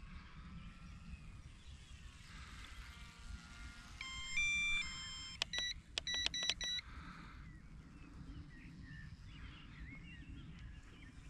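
A run of electronic beeps: two longer tones stepping up in pitch, then about five short quick beeps. Underneath are wind rumble on the microphone and a faint high whine of the small electric RC plane's motor.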